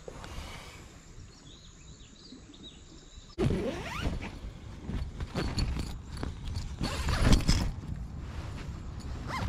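Rustling, knocking and handling noise inside a tent, getting suddenly louder about a third of the way in, with a quick rising rasp among the rustles. Faint high chirping can be heard before the noise begins.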